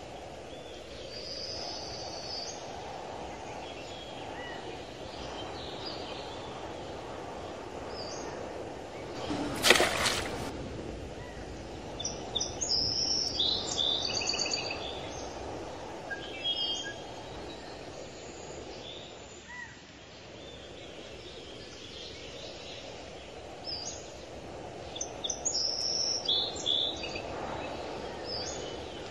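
Outdoor ambience with a steady low rushing background and small birds chirping in scattered bursts. About ten seconds in, a single sharp, loud noise lasting about a second stands out above the rest.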